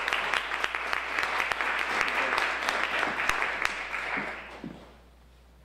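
Audience applauding, the clapping dying away about four to five seconds in.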